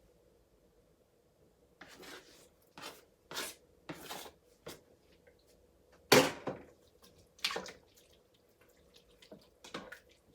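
Spoon stirring chopped cilantro into curry in the cooker's pot: a series of short scrapes and clinks against the pot, the loudest about six seconds in.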